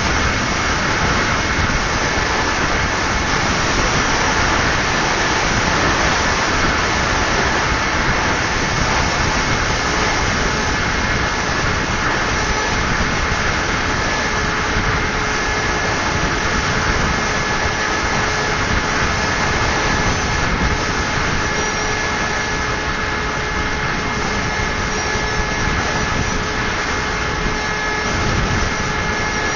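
Electric motor and propeller of a Multiplex Twister model plane running at a steady throttle, a steady whine over a constant rush of wind noise.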